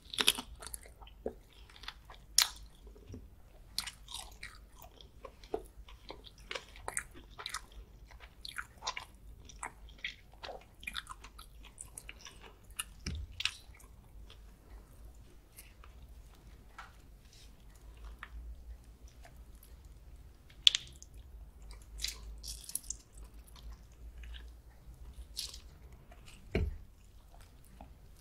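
Close-miked chewing and biting of garlic butter prawns: wet mouth sounds with irregular crunches and crackles, a few sharper clicks, and a dull knock near the end.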